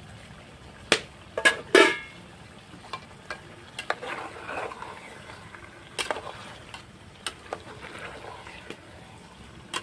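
Chicken pieces and chicken liver frying in masala in a pot, stirred with a spoon: a soft sizzle and scraping, with a few sharp clanks of the spoon on the pot between one and two seconds in, the loudest just before two seconds, and scattered knocks after.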